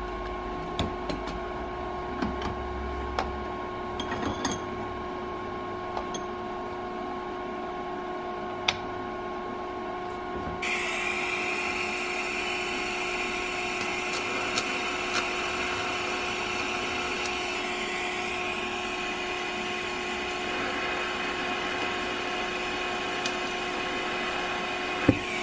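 Small clicks and knocks of metal being handled over a steady hum, then about ten seconds in a DC TIG welding arc strikes and runs with a steady hiss, shifting slightly in tone partway through. The arc is putting tack welds on a corner joint with the torch alone, no filler rod.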